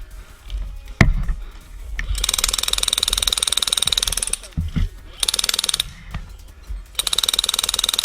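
Classic Army M134-A2 airsoft minigun firing three bursts of a fast, even mechanical rattle: a long one about two seconds in, a short one near the middle, and another near the end. A single sharp click comes about a second in.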